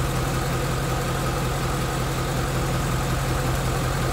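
2016 Mustang GT's second-generation 5.0 Coyote V8 idling steadily, with a light rapid 'typewriter' ticking under the engine note, which the owner puts down to the freshly changed oil.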